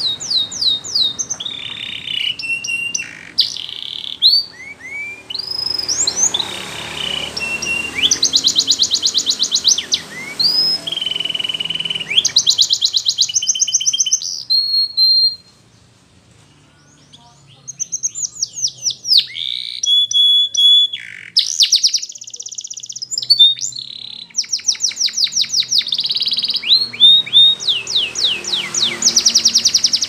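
Canary singing a long, varied song of rapid trills, downward-sweeping whistles and held notes, with a short pause about halfway through.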